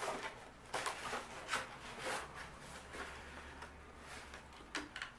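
Cardboard box of a security camera kit being opened and its contents handled: a few short rustles and scrapes.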